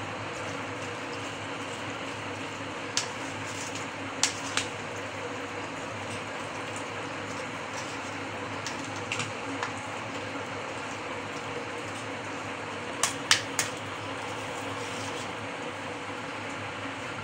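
Spoon stirring a wet yogurt mix of potatoes, onions and chickpeas in a steel bowl, with several sharp clinks of the spoon against the bowl, some in quick pairs and triples, over a steady background hum.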